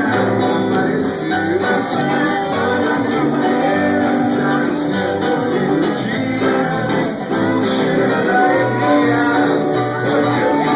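Live band playing, with guitar and singing.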